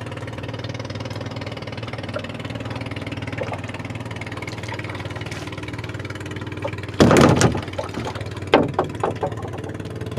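Small fishing boat's engine running steadily, with a loud clatter about seven seconds in and a few sharp knocks after it.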